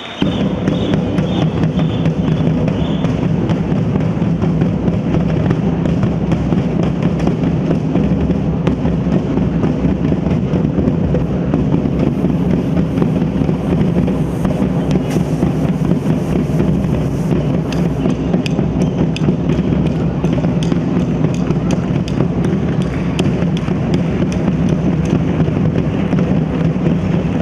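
Batucada percussion ensemble drumming with sticks on a row of drums, a dense, driving groove with heavy low drum tones under rapid stick strokes. It starts suddenly, at full level.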